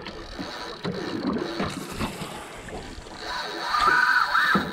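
Spinning reel whirring steadily for about a second and a half near the end while a hooked fish is fought from a small boat, over water noise and wind on the microphone.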